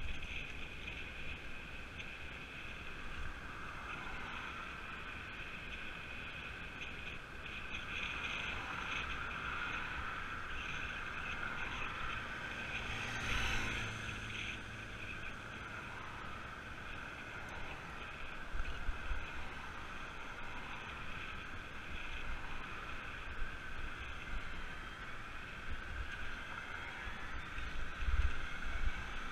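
Steady wind and road noise on a bicycle-mounted camera while riding along a road, with gusty low rumble. About halfway through, a motorcycle's engine passes close by and fades.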